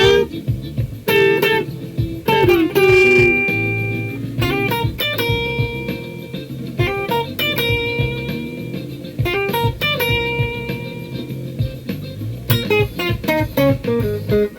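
Electric guitar playing a lead line of held and bent notes over a band backing track with bass.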